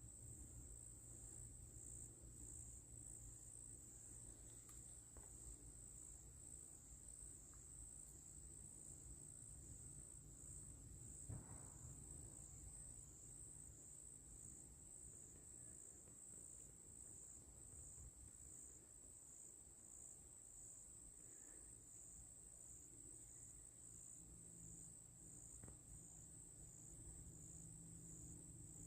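Insects trilling in one steady, high, slightly pulsing drone, with a faint low rumble underneath and a single soft tap about a third of the way through.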